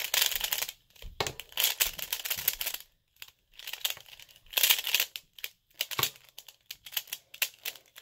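Pyraminx puzzle being twisted quickly by hand to scramble it: its plastic pieces clicking and clacking in rapid flurries, with a brief pause about three seconds in.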